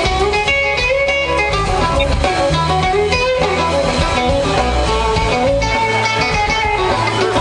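Band music: guitars playing a melody over a bass line, steady and loud.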